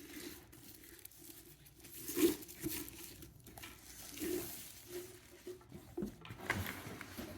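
Cardboard and packaging rustling and crinkling as a humidifier is handled and lifted out of its box, with a few soft knocks.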